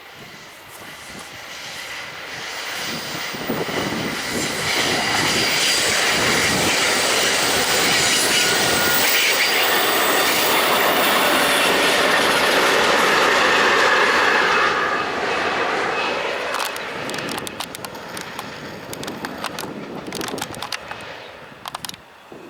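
A train passing by, building up over a few seconds, then a loud steady rush of wheels on rail with faint high ringing tones. It fades after about fifteen seconds into a string of sharp wheel clicks over the rail joints.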